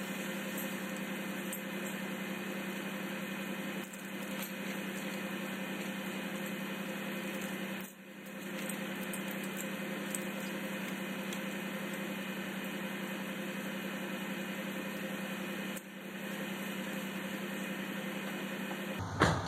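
Pickup truck engine idling steadily, a constant low hum with brief dips a few times.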